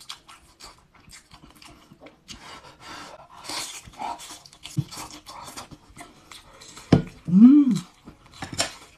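Close-up mouth sounds of chewing braised beef head meat: irregular wet smacks and clicks. About seven seconds in comes a loud hummed "mmm" of enjoyment that rises and falls in pitch.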